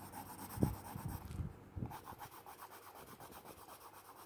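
Pencil scratching across rough-textured drawing paper in quick back-and-forth hatching strokes, about five or six a second, as a suit jacket is shaded in. A few dull low knocks sound in the first two seconds.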